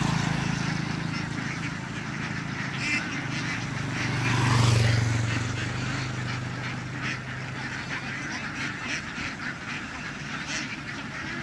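A large flock of laying ducks quacking, over a low steady motor hum that swells about halfway through.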